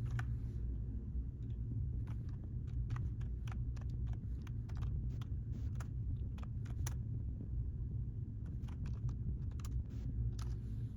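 Irregular clicks and taps on a computer keyboard over a steady low hum.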